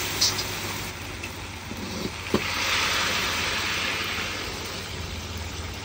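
Chicken and celery sizzling and bubbling in sauce in a black steel wok over a gas burner, with a steady low rumble beneath. One sharp metal knock a little over two seconds in, after which the sizzle grows louder for a second or two.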